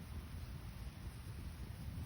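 Wood campfire burning steadily: a low, even rumble of flames with a faint hiss, without sharp pops.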